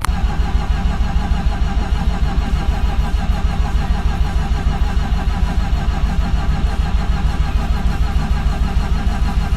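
Mazda RX-7's twin-rotor rotary engine catching suddenly and then running steadily with a fast, even pulse. This is its first start after sitting for about a month.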